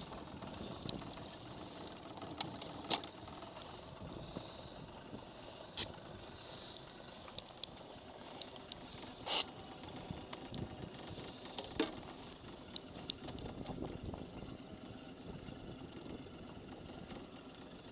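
Scattered light knocks and clicks of gear and hands moving about a small fishing boat while a zander is landed, over a low steady background noise.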